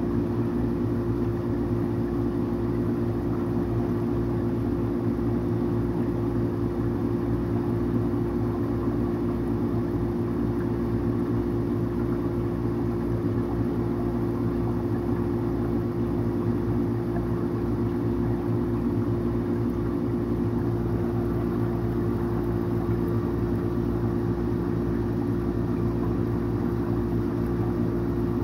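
Steady electric hum of aquarium equipment, holding a few fixed pitches with a low, even rush beneath, unchanging throughout.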